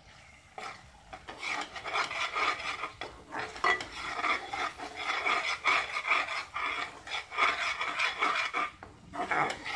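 Metal spatula scraping and stirring a thick ground green chilli paste around an aluminium pan: a rapid, continuous rasping scrape that starts about half a second in, with a short break near the end. The paste is being fried until the oil separates out of it.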